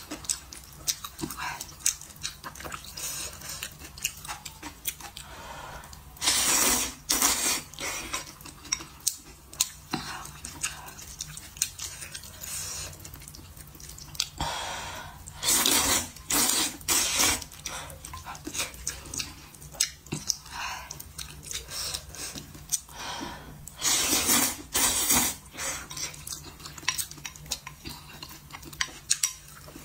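Wide hand-made noodles in broth being slurped in three loud bouts, with wet chewing and lip smacks in between.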